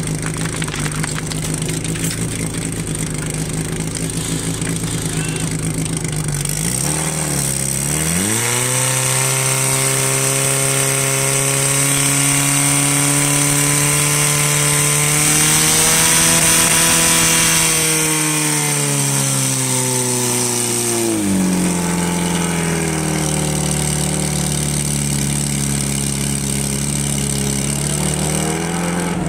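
Portable fire pump's engine running steadily, then revving up about seven seconds in and held at high speed for some fifteen seconds while water is pumped out through the hose lines, before dropping back to a lower speed.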